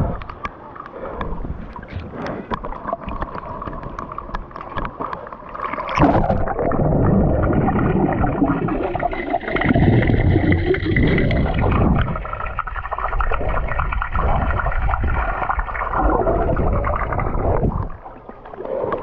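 Pool water lapping and splashing against a waterproof action camera held at the surface, with many small clicks. About six seconds in the camera goes under, and the sound turns to a muffled underwater rumble and gurgling. Near the end the camera breaks the surface.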